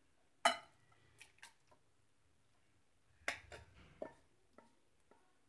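A wooden spatula scraping and knocking against a nonstick kadai as thick, wet curry is pushed out onto a plate. The sounds are a few short clicks and scrapes: the sharpest is about half a second in, and a cluster comes about three to four seconds in.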